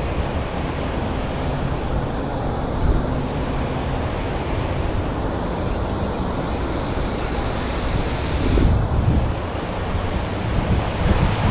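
Steady rushing noise of wind on the microphone, with irregular low rumbles as gusts buffet it.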